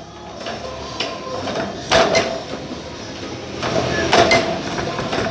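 Irregular metallic knocking and clatter, with two louder ringing knocks about two seconds and about four seconds in.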